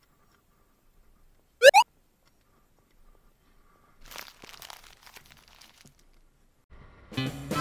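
A short, loud double squeak rising in pitch, then a few seconds of faint crunching and rustling; guitar music starts near the end.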